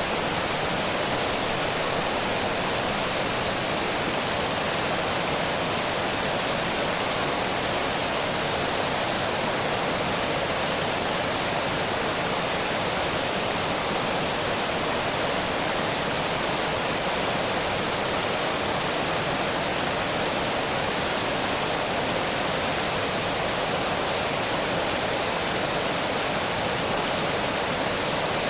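Water pouring over a small dam: a steady, unbroken rushing roar with no let-up.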